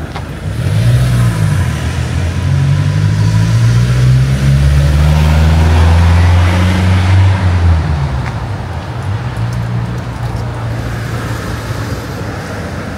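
Motor vehicle driving past with a low engine hum. It builds from about half a second in, is loudest around five to seven seconds, then fades after about eight seconds into background traffic noise.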